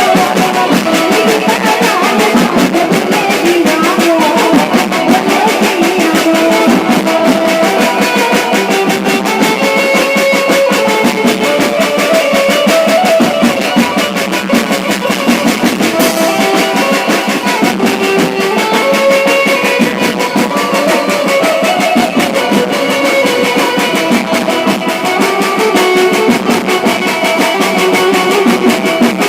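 Loud music played through a DJ sound system: a steady, dense drum beat with a melody over it. The low bass is missing.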